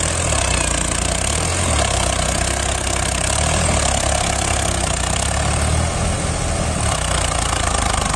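Diesel farm tractors running steadily under load as they drag levelling blades through sand, several engines blending into one continuous low note.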